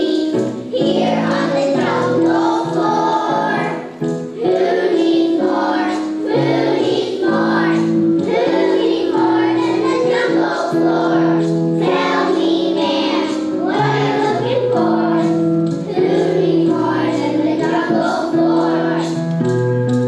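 A chorus of young children singing with a piano or recorded accompaniment.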